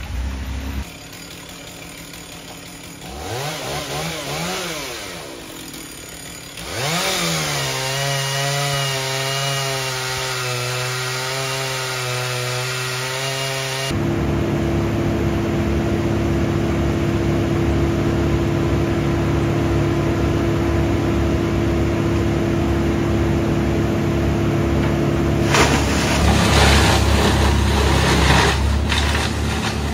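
A chainsaw revs up and down a few times, then runs steadily at high speed on a fallen tree trunk. About halfway the sound changes to a Vermeer brush chipper's engine running steadily with a held whine. Near the end the chipper grinds through branches fed into it, a loud rough noise.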